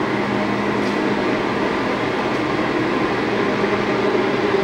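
Steady mechanical background drone in a machine shop: an even rushing noise over a constant low hum, with no distinct strokes or changes.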